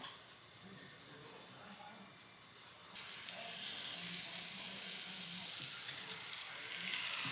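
Food sizzling on a hot surface: quiet at first, then a steady frying hiss that starts abruptly about three seconds in.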